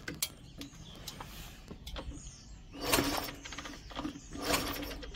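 Kick-starter of a Chinese Honda CT70 Dax copy being kicked twice, about a second and a half apart, turning the small single-cylinder engine over with a short rasping sweep each time as the newly wired ignition is tried.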